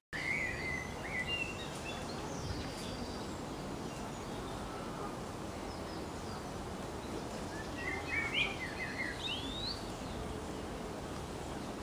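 Outdoor ambience: a steady background hiss with small birds singing, a short chirping phrase about a second in and a busier run of chirps ending in a rising whistle around eight to nine seconds in.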